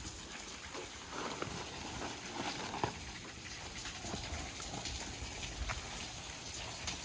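Fabric car cover rustling as it is dragged back off the car's roof and hood, with a few small knocks.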